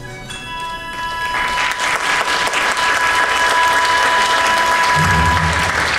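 Audience applauding, swelling up from about a second and a half in, over held closing notes of music that stop near the end.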